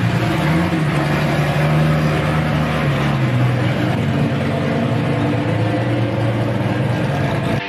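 Modified Chevrolet Opala engine running as the car drives off slowly, a deep steady note with small rises and dips in pitch.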